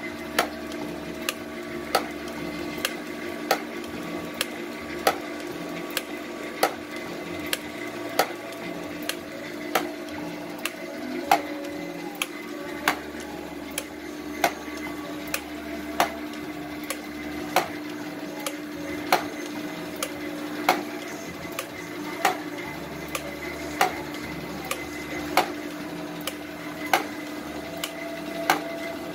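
Sunderland 5B gear-cutting machine running while it cuts the teeth of a steel ratchet wheel. A steady machine hum is broken by a sharp metallic knock about every second and a half, with lighter ticks in between, in an even rhythm.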